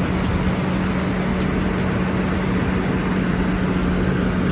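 Chevrolet Trailblazer engine idling steadily with a constant low hum, warming up after a long time sitting unused. The tapping noise it had before is not heard.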